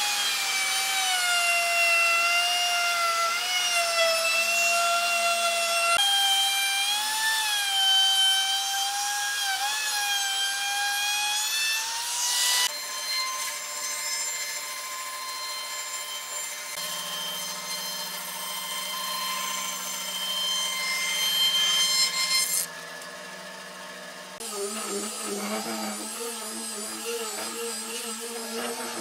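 Power woodworking tools, one after another. First a wood router whines at a high pitch that wavers as it cuts. About halfway through, a band saw runs with a steadier tone as it cuts a slab. Near the end, an angle grinder with a sanding disc runs against a board, with a lower, fluttering sound.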